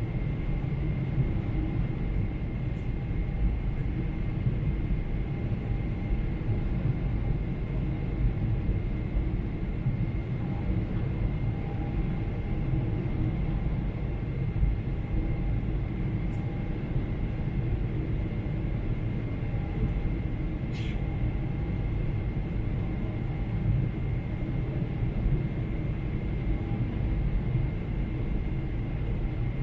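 Steady airliner cabin noise in flight: a low rumble of engine and airflow with a faint steady whine, and a single small click about twenty seconds in.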